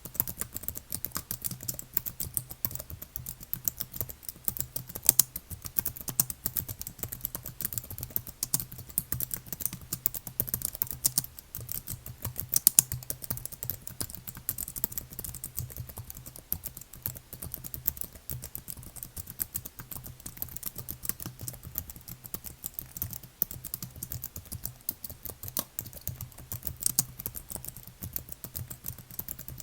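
Computer keyboard being typed on continuously: a fast, dense run of key clicks with an occasional louder keystroke, over a faint steady low hum.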